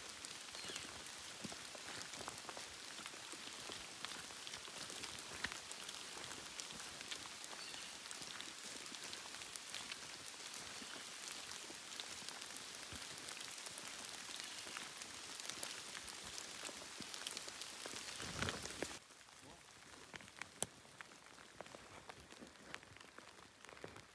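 Steady pattering, crackling noise full of small clicks, which stops abruptly about nineteen seconds in and leaves a quieter hush with a few scattered clicks.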